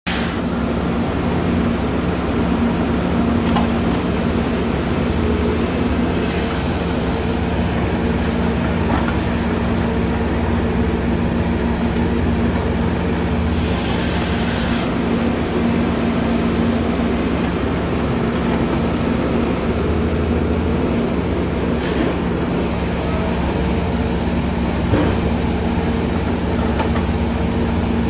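Diesel engine of a knuckleboom log loader running steadily while it works, a constant drone with a steady low hum. A couple of brief knocks come late on.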